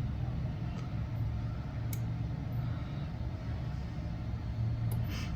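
Steady low mechanical hum, with a couple of sharp computer-mouse clicks, one about two seconds in and one near the end.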